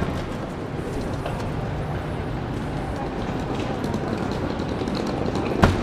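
Railway station concourse ambience under a glass train-shed roof: a steady hum of the station with people passing, scattered light clicks, and one sharp knock near the end.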